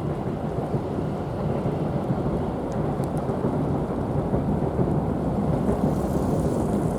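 Freight train rolling past, a steady low rumble of wheels on the rails that grows slightly louder, with a few faint clicks about three seconds in.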